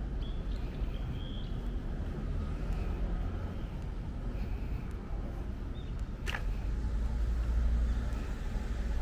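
Outdoor street ambience: a steady low rumble with faint short high chirps scattered through it, and one sharp click a little past six seconds in.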